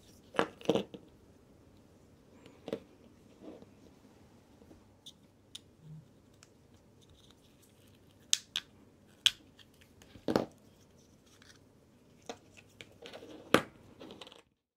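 Small clicks, taps and scrapes of metal watch parts and tools being handled while a Ricoh Dynamic Wide wristwatch is taken apart, as its movement comes out of the case. The sounds are scattered, with louder sharp knocks near the start, about ten seconds in and near the end.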